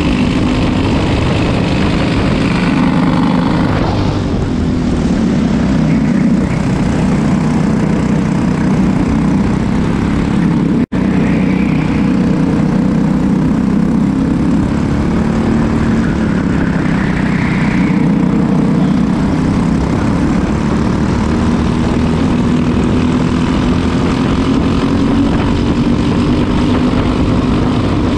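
Go-kart engine running at racing speed, heard from on board the kart, its pitch rising and falling with speed through the corners. The sound cuts out for a split second about eleven seconds in.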